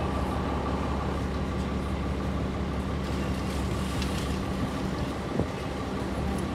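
Orion V diesel transit bus engine idling with its doors open, a steady low hum with a faint constant whine above it.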